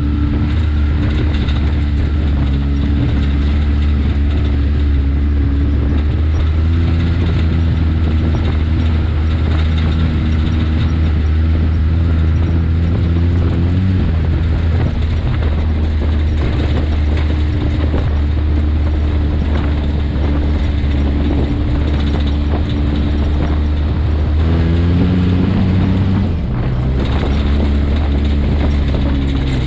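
Side-by-side UTV engine running steadily while driving a dirt trail, its pitch stepping up and down a few times with the throttle.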